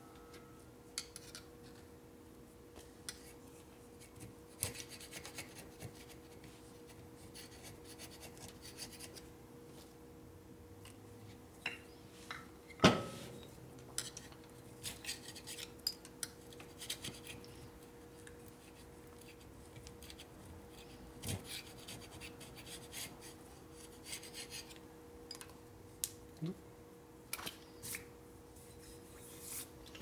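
A gasket scraper and hand tools scraping and rubbing old gasket residue off a Harley-Davidson shovelhead's aluminium cylinder head, in short intermittent strokes with small metal clicks. There is a sharp metal clank about 13 seconds in, and a steady low hum underneath.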